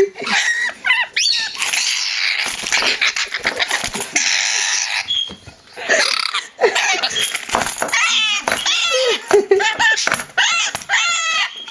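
Pet lorikeet screeching harshly several times, then breaking into fast, wavering chatter in the second half.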